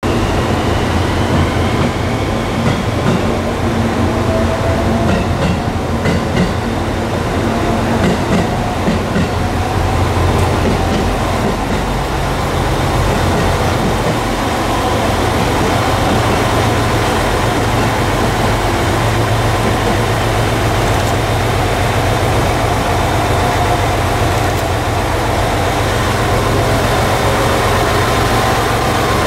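Diesel engines of a Chizu Express HOT7000 series diesel multiple unit idling with a steady low rumble while the train stands at the platform, with a few short clicks in the first ten seconds.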